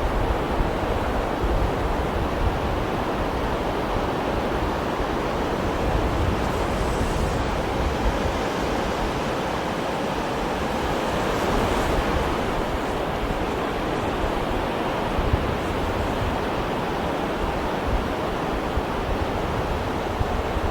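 Sea surf: waves washing steadily and continuously, with a low rumble underneath.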